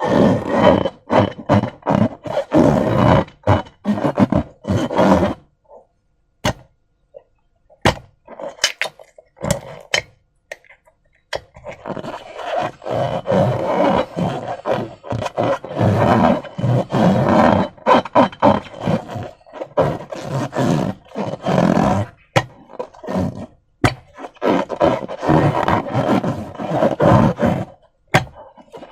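Slime squelching and crackling as it is worked by hand, with a rapid patter of small wet pops and clicks. It thins to a few scattered clicks for several seconds about a quarter of the way in, then turns dense again.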